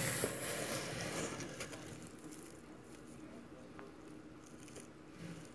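A mass of black soldier fly larvae writhing and feeding on pizza, a faint wet crackling and rustling, louder for the first second or so, then quieter with a few small clicks.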